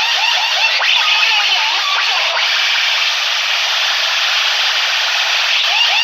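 Loud, harsh blare of DJ sound systems playing against each other at full volume, heard as a dense wash of noise. Rapid siren-like chirps repeat several times a second at the start, drop away in the middle and come back near the end.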